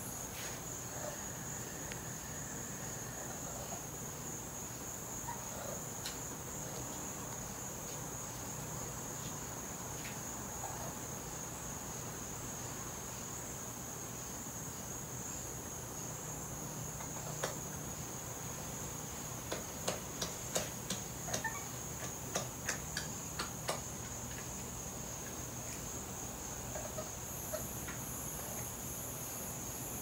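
Steady high-pitched chirring of night insects, crickets. About two-thirds of the way in, a quick run of about a dozen short, sharp clicks over four seconds stands out above it.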